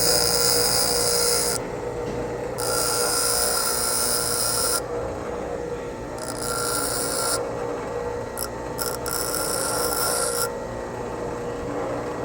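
Bench grinder running with a steady hum while a twist drill bit's cutting edge is pressed to the wheel in about four short grinding passes, flattening the rake on the bit's second lip.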